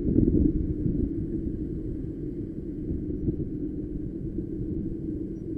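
Street go-kart driving: its small engine runs at a steady drone under a low rumble of road and wind noise, a little louder in the first second.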